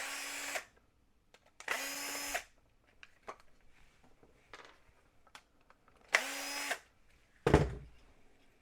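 A power drill run in three short bursts, each a steady whir that winds down as the trigger is released. A loud knock comes near the end.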